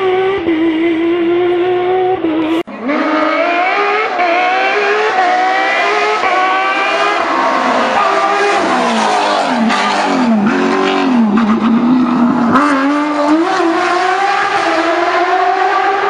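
Porsche 997 GT3's naturally aspirated flat-six engine at high revs, its pitch climbing and dropping again and again as it changes gear, with a run of quick dips and rises in the middle. The sound breaks off suddenly about two and a half seconds in and picks up again at a different pitch.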